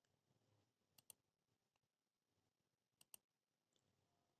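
Near silence broken by two pairs of faint, sharp clicks, one about a second in and one about three seconds in: a computer mouse button being clicked to page through the document.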